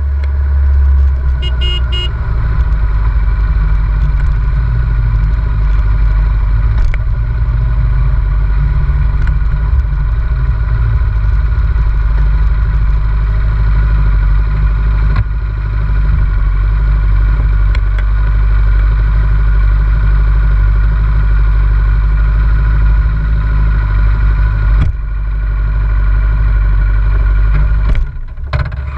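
Motorcycle riding at road speed, heard from a camera mounted on the bike: a steady loud drone of engine, wind and road noise, dipping briefly near the end.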